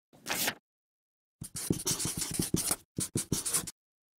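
A short swish, then about two seconds of quick scratchy strokes like a marker writing on paper, with a brief break near the end: a handwriting sound effect.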